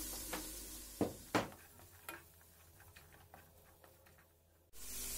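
Onion and carrot in butter frying faintly in a pan as diced onion is tipped in from a glass bowl, with two sharp knocks about a second in. Then only light scattered clicks of the vegetables being stirred, and the steady frying sizzle comes back suddenly near the end.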